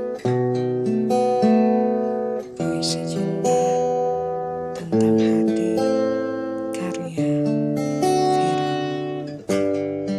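Acoustic guitar playing slow chords, struck about once a second and left to ring out.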